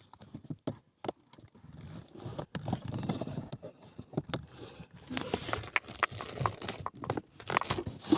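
Irregular clicks and knocks of hands working a plastic cover and trim loose under a car's dashboard, with scattered rustling.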